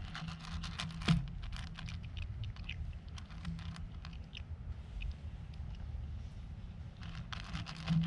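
A cat eating, chewing its food in a quick, uneven run of small crisp clicks, with a louder crunch about a second in.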